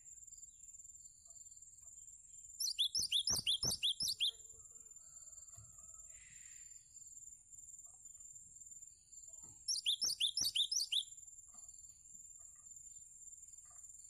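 Cinereous tit singing: two fast phrases of about ten sharp, high repeated notes each, the first about three seconds in and the second about ten seconds in. A steady high whine runs underneath.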